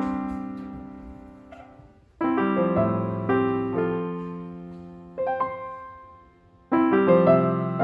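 Background piano music: slow, soft chords that ring out and fade, with new chords about every two to four seconds.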